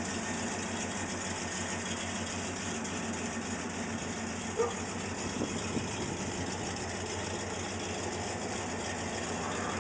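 A 383 Magnum big-block V8 in a 1969 Plymouth Road Runner idling steadily, with one brief higher-pitched sound about halfway through.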